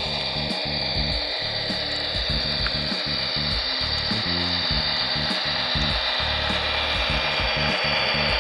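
Model diesel locomotives and freight train running: a steady whine from the electric motors with the rolling of metal wheels on the rails.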